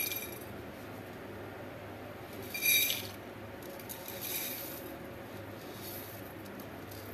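Crisp fried moong dal grains pour from a bowl onto a plate in a steady dry rattling patter, louder in a surge about three seconds in. The crisp rattle is the sign that the dal is fried crispy, each grain separate.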